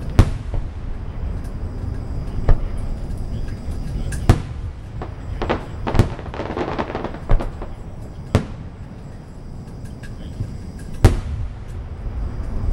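Fireworks display: aerial shells bursting with irregular sharp bangs, about seven in all, and a spell of crackling about halfway through.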